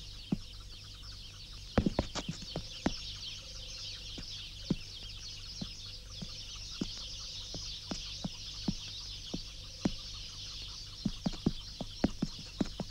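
Irregular sharp clicks and knocks of Ustyurt mouflon hooves and loose stones on rock, busiest about two seconds in and again near the end, over a steady high hiss.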